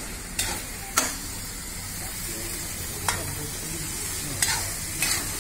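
Potatoes frying in mustard masala in a kadhai, sizzling steadily while being stirred, with a metal spatula clinking and scraping against the pan about five times, the loudest clink about a second in.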